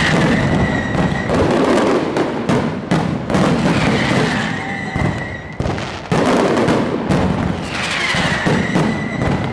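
Fireworks display: a dense run of bangs and crackling from aerial shells bursting overhead, with a high whistle that comes and goes about every four seconds.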